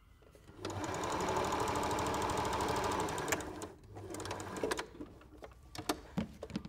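Domestic sewing machine stitching, running steadily for about two and a half seconds and then stopping, as it backstitches over the first few stitches to lock the start of the seam. A shorter, quieter run follows, then a few light clicks.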